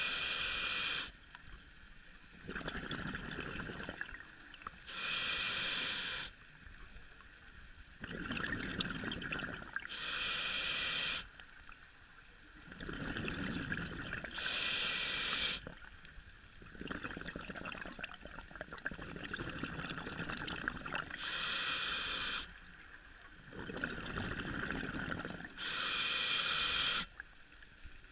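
Scuba diver breathing through a regulator underwater. A short, loud hiss on each breath, six times about five seconds apart, is followed each time by a longer, lower burble of exhaled bubbles.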